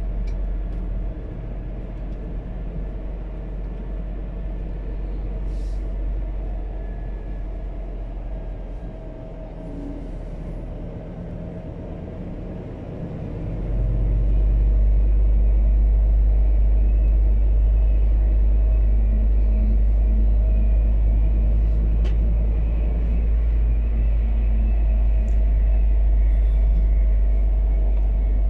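Engine and road rumble heard from inside the cab of a biogas Scania P280 truck on the move, steady and low, growing clearly louder about halfway through.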